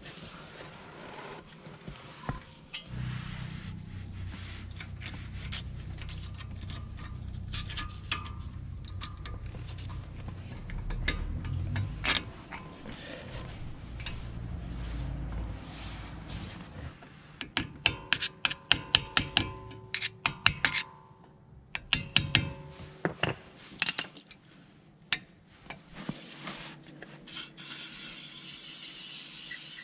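A low steady hum through the first half, then metal brake parts clicking and scraping as pads are fitted into the caliper against the brake disc, and near the end the steady hiss of an aerosol WD-40 can spraying.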